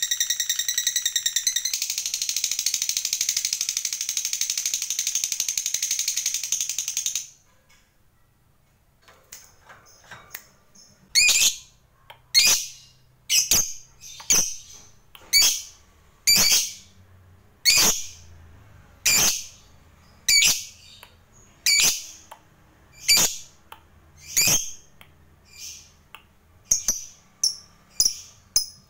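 Fischer's lovebird giving a long, fast chattering trill, the 'ngekek panjang' that lovebird keepers prize, which cuts off suddenly about seven seconds in. After a short pause it gives short shrill chirps, about one every second and a bit.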